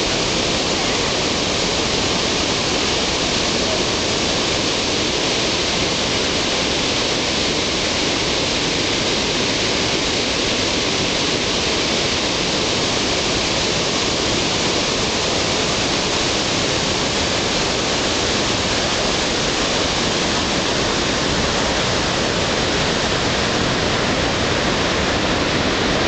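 The Rhine Falls: a large river waterfall crashing over rock outcrops, a loud, steady rush of water with no let-up.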